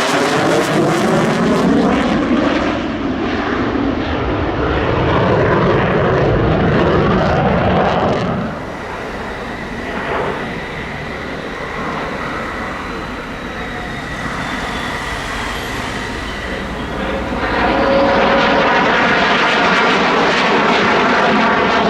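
JAS-39C Gripen jet fighter's single Volvo RM12 turbofan passing overhead. The loud jet noise dips about a third of the way in and swells again near the end, with a steady high-pitched whine through the quieter middle.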